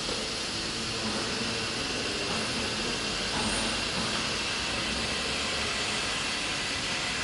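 CNC wood router running: steady machine noise with a faint high, even tone from the spindle.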